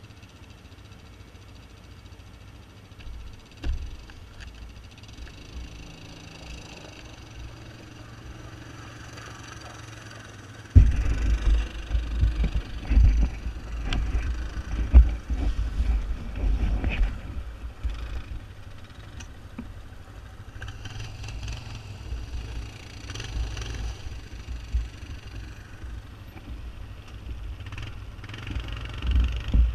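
Quad ATV engines idling. About eleven seconds in, a much louder, uneven low rumble begins suddenly as the rider's own ATV moves off along the rocky dirt trail.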